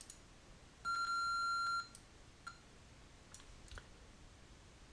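TI-99/4A power-up beep played by the Classic99 emulator as its title screen comes up: a single steady tone lasting about a second. A few faint clicks follow.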